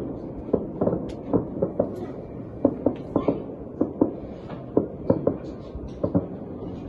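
Fireworks salute heard from a distance: an irregular series of dull bangs and pops, several a second.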